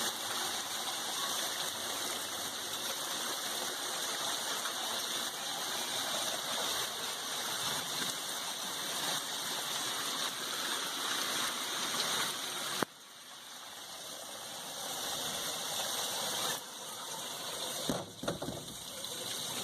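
Steady rush of pouring water from a downpour and flash flooding. It drops off sharply about 13 seconds in, then builds back up.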